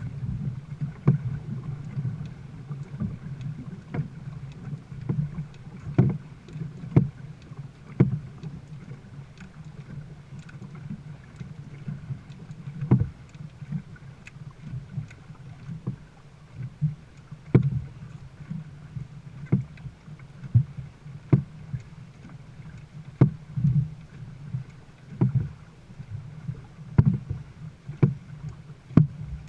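Dragon boat paddles striking and pulling through the water in a rough rhythm, about one stroke a second, over a steady low rumble of wind on the microphone.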